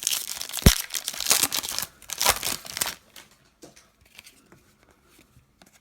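Trading-card pack wrapper being torn open and crinkled for about three seconds, then a few faint light taps as the cards are handled.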